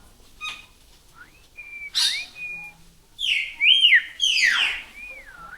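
Caged birds whistling and calling: clear sliding and wavering whistles mixed with loud, harsh calls that sweep downward, the loudest between about two and five seconds in.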